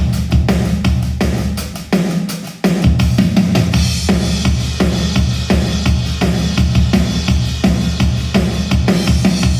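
Drum-heavy music with a deep bass line, played through Hivi Swans D1200 bookshelf speakers. The bass drops away briefly, then the full beat with heavy bass comes back in about two and a half seconds in and runs on steadily.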